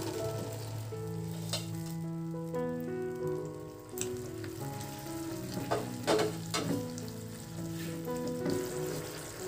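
Oyster sauce with onions and chillies sizzling in a non-stick wok while a spatula stirs it, with several sharp knocks and scrapes of the spatula on the pan, the loudest a little past the middle. Soft background music with a simple melody plays under it.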